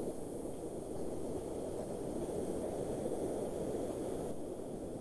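Steady low rushing background noise picked up by an open microphone on a video call, with no distinct events.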